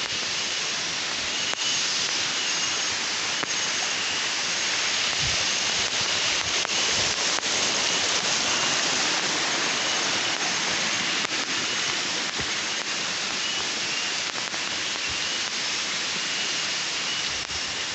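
Steady hissing chorus of tropical forest insects, with a faint pulsing chirp repeating over it, and a few light clicks scattered through.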